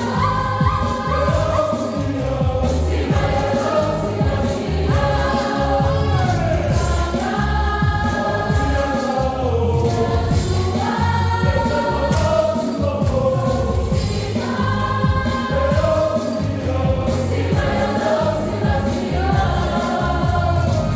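Music with choral singing over a steady low beat.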